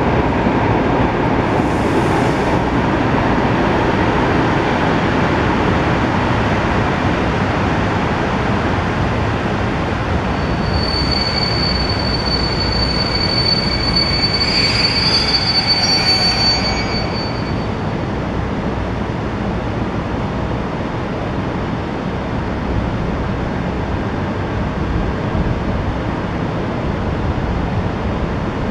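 Passenger train coaches rolling slowly past with a steady rumble. Their wheels squeal in a high whine from about ten seconds in until about seventeen seconds in.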